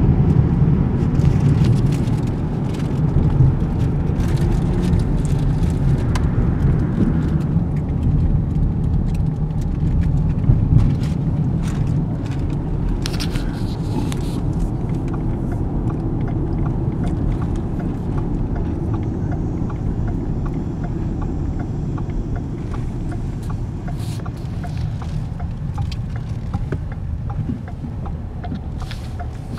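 Moving car heard from inside the cabin: a steady low rumble of engine and road noise that gradually gets quieter toward the end, with a few faint ticks over it.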